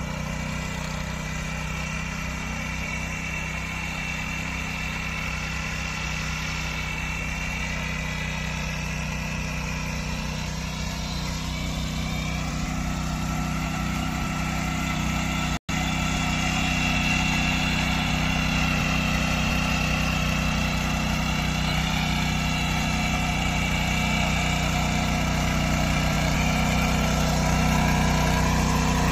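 Small petrol engine of a power weeder running steadily as its rotary tines churn through the soil. The sound cuts out for an instant about halfway through and comes back slightly louder.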